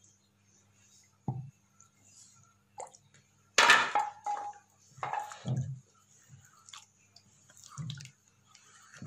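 Hands mixing and squeezing ground poppy seed and almond paste in water in a clay bowl: scattered wet squelches, drips and splashes, the loudest about three and a half seconds in.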